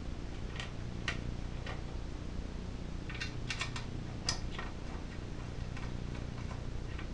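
Light metallic clicks and taps as bolts are fitted by hand into a Tecumseh small engine's sheet-metal shroud: a few scattered ticks, then a quick run of them about three seconds in, with the sharpest click just after. A steady low hum runs underneath.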